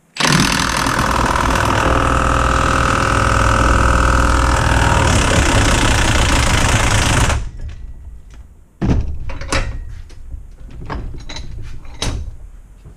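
Milwaukee M18 Fuel cordless impact wrench hammering at full power for about seven seconds on a nut and bolt held in a bench vise, then stopping sharply. Its guessed-size socket is rounding the nut off. A few metal clanks follow as the tool and socket are handled.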